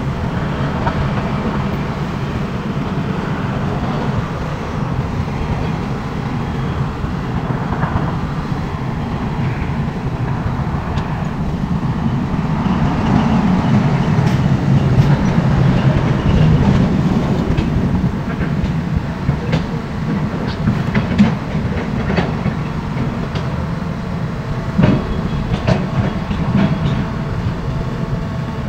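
Heavy diesel machinery running with a steady low rumble, with a few sharp metallic knocks in the second half.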